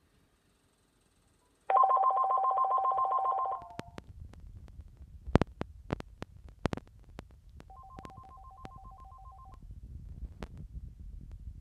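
Electronic ringer of an AT&T CL4940 corded phone: a rapid warbling ring of two alternating tones for about two seconds, then, after a pause of about four seconds, a second, fainter ring. Handling clicks and knocks fall in between.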